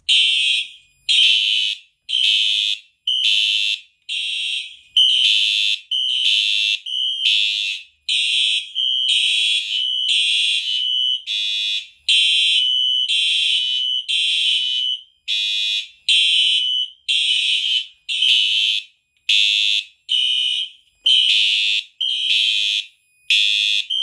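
Simplex fire alarm horn-strobes sounding in alarm, a loud pulsed horn tone at about one blast a second. The system has gone into alarm from a manual pull station being pulled.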